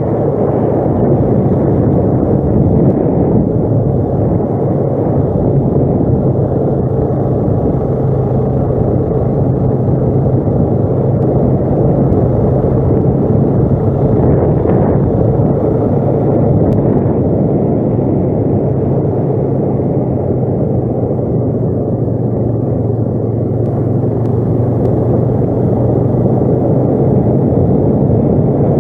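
ATV engine running steadily under way, with a constant low hum and heavy rumble that hardly changes in pitch or loudness.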